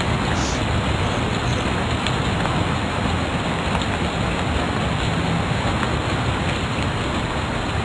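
Steady, even hiss-like noise with no change in level, and a few faint ticks.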